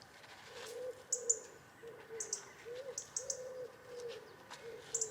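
A pigeon cooing: a string of short, soft, low coos. Small birds chirp a few times, high and brief, in the background.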